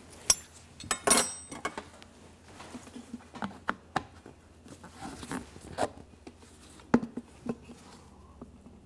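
Irregular metal and glass clinks, taps and knocks from fitting a diesel fuel injector to the high-pressure line of a hand-pump injector tester and setting a clear fume-capture bottle beneath it. The sharpest clinks ring briefly about a second in.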